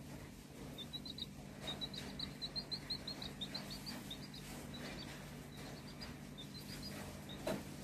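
Baby chick peeping in runs of short, high cheeps, several a second, thinning out toward the end. A soft knock near the end.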